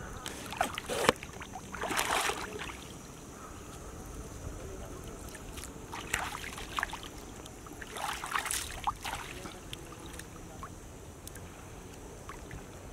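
Water splashing and sloshing in a few short bursts, the loudest about a second and two seconds in, more around six and eight to nine seconds in.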